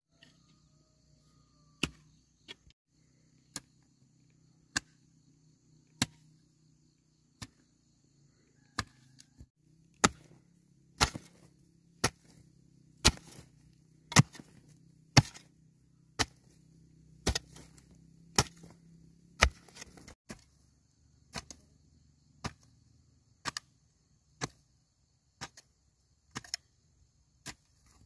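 A series of sharp knocks, about one a second and loudest in the middle stretch, over a steady high-pitched buzz and a low hum that stops about two-thirds of the way through.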